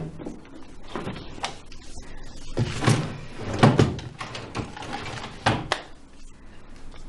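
A wooden wardrobe being searched through by hand: a series of knocks and bumps from its doors and shelves, with clothes rustling in between, the loudest knocks in the middle.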